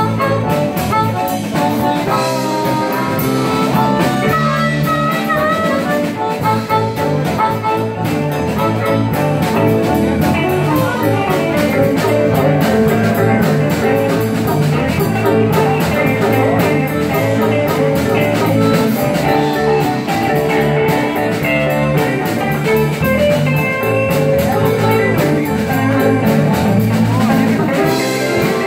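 Live blues band playing an instrumental passage: a harmonica cupped against a microphone and amplified, over electric bass and drum kit.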